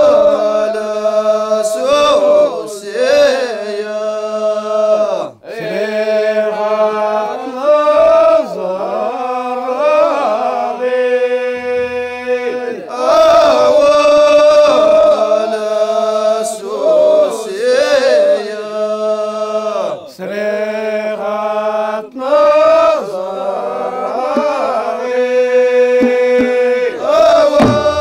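A chorus of men chanting in unison without drums: long drawn-out notes that slide and bend between pitches over a steady low held note.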